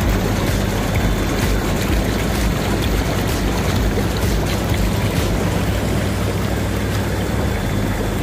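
Hot tub jets churning the water, heard from inside a small plastic LEGO boat: a steady rushing of bubbling water over the low hum of the tub's pump, with light knocks now and then.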